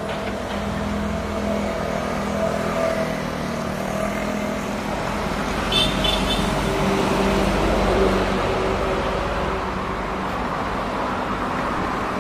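Motorcycle engine running steadily at low speed, with wind and road noise on the ride camera's microphone. Three short high chirps come about six seconds in.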